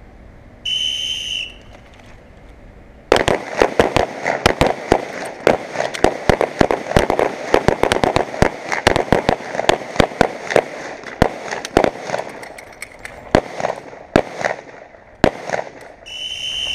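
A range whistle blows once, and about two seconds later a line of handguns opens fire: many shots from several shooters overlapping for about twelve seconds, thinning out near the end. The whistle blows again near the end, ending the timed string of fire.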